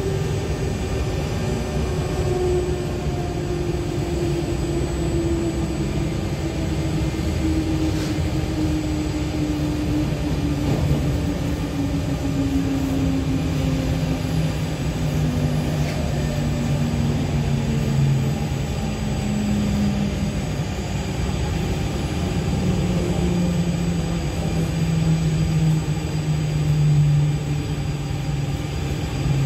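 Z20500 double-deck electric train heard from inside its motor car: steady rumbling running noise with a motor whine that falls slowly in pitch throughout as the train slows on its approach into a station.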